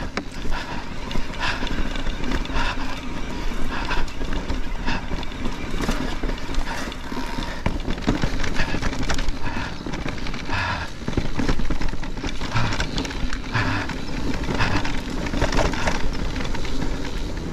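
Mountain bike rolling over a rough, muddy dirt trail: a continuous clatter of quick knocks and rattles from the tyres, chain and frame as it goes over bumps.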